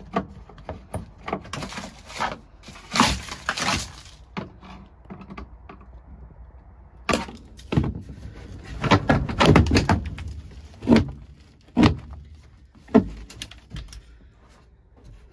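Irregular metal clanks, knocks and rattles as the locked, stuck tailgate of a 1957 Plymouth Sport Suburban station wagon is worked on to free it. The sounds come in clusters early and in the middle, then three sharp knocks about a second apart near the end.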